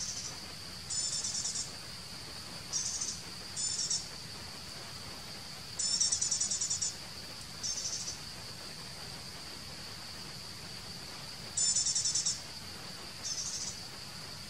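Steady high-pitched drone of insects such as crickets or cicadas. Short, rapid high trills break in over it about eight times, one every second or two.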